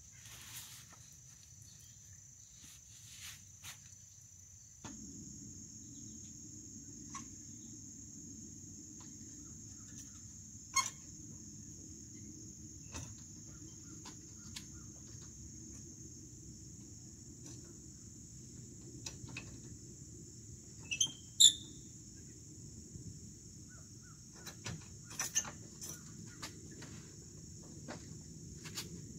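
Steady high-pitched insect chorus, with a low steady rumble that comes in about five seconds in. Scattered short clicks and knocks run through it, the loudest being a brief pair of chirps about two-thirds of the way through.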